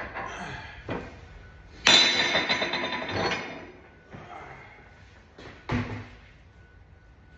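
Metal knocks and clanks. The loudest is a sharp strike about two seconds in that rings on for over a second, and there are single thuds at the start, about a second in, and near the end.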